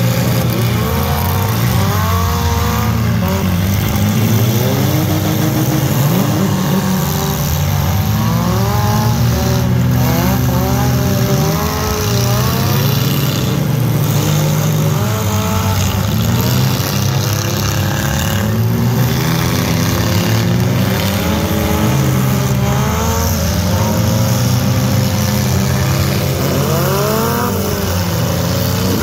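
Engines of several demolition-derby SUVs and small trucks running and revving at once, pitch rising and falling in overlapping sweeps over a steady low drone, with a few brief impacts from the cars ramming each other.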